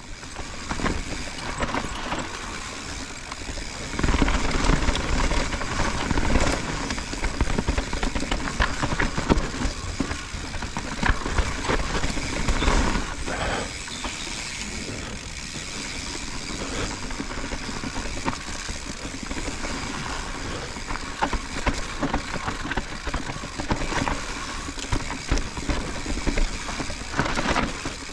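Mountain bike descending a dirt forest trail: tyres rolling over dirt and roots, with constant rattling and clicking from the chain and frame over the bumps. The level rises and falls, growing louder about four seconds in.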